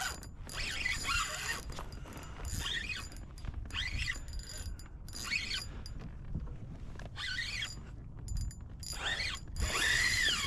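Spinning reel's drag buzzing in repeated runs, each rising and falling in pitch, as a hooked redfish pulls line off against the drag. The longest run comes near the end.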